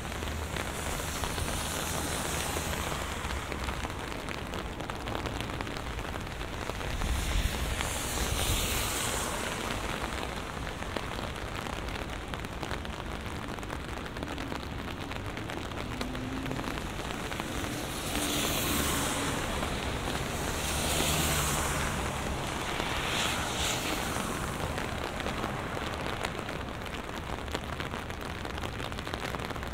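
Steady heavy rain falling, an even hiss and patter, with louder swells of hiss a quarter of the way in and again past the middle.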